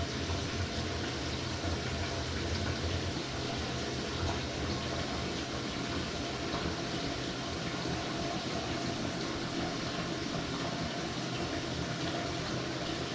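Toilet cistern refilling after a flush: a steady rush of running water, with a low rumble that eases off about three seconds in.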